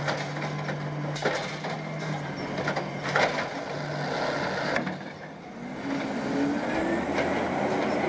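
Automated side-loader arm on a Peterbilt 320 natural-gas garbage truck dumping a cart, the engine and hydraulics running with a steady hum and several knocks and clunks as the cart is shaken out and set down, the loudest about three seconds in. Near the end the engine rises in pitch as the truck pulls away.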